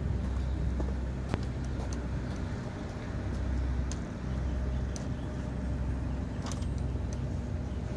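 Steady low rumble of a motor vehicle running, with a few light, sharp clicks scattered through it.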